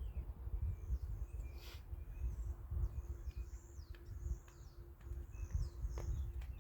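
Small birds chirping over and over: short high calls that sweep downward in pitch, over a low rumble.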